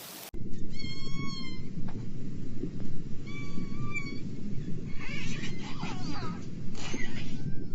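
Killer whale calls: two drawn-out whistling calls with overtones, then a quick run of chirps and squeals about five seconds in, over a steady low rumble.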